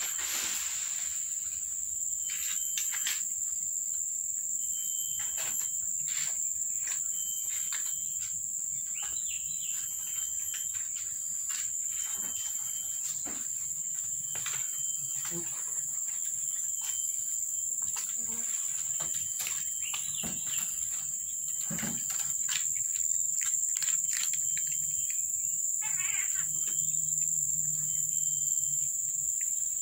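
Insects shrilling steadily outdoors, a constant high-pitched drone with a rapid pulsing chirp above it, over scattered short clicks and taps.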